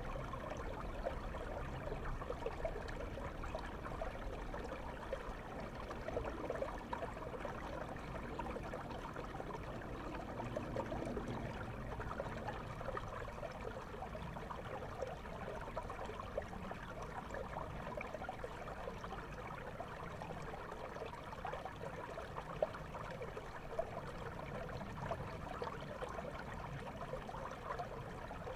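Flowing river water heard through a camera microphone held underwater: a steady, muffled rush dotted with many small bubbling ticks.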